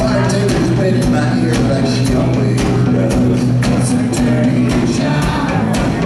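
Rock band playing live: electric guitars, bass and a drum kit, with cymbal hits at a steady beat.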